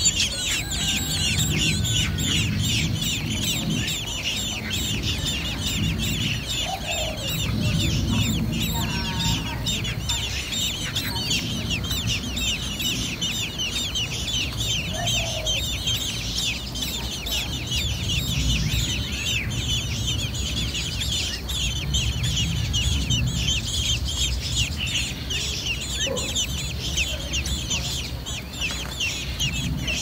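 Continuous, rapid high-pitched chirping of young birds, many short descending peeps overlapping, over a low rumble.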